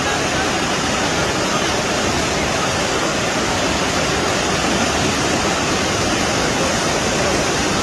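Muddy flash-flood water rushing steadily, a continuous loud noise of a fast torrent carrying debris.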